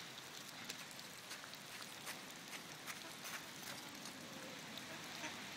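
Light rain pattering: a faint steady hiss with scattered small ticks at irregular intervals.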